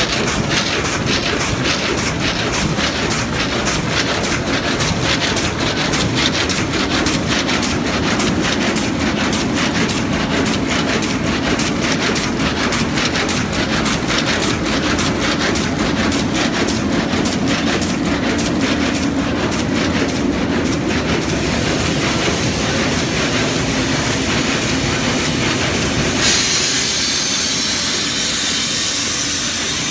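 Van de Wiele CRT 83 carpet weaving loom running at full speed with a fast, regular clatter of strokes. About 26 seconds in, the clatter gives way to a steady hiss.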